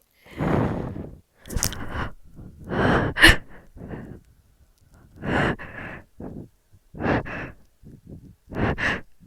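A person's heavy, shaky breaths and sighs, about seven in a row, while holding back the urge to sneeze; the loudest and sharpest comes about three seconds in.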